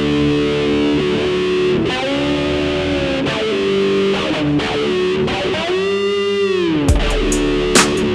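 Instrumental music: distorted, effects-laden electric guitar holding sustained notes, with a wide swooping pitch bend about two-thirds of the way through. Deep bass and sharp drum hits come in near the end.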